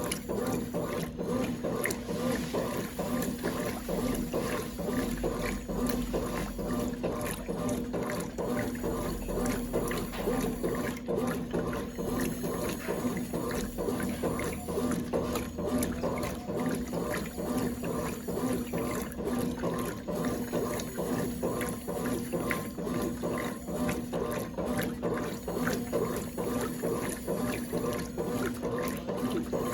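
A 1996 Brastemp Clean 5 kg washing machine running, with water sloshing and splashing in the tub over a steady motor hum.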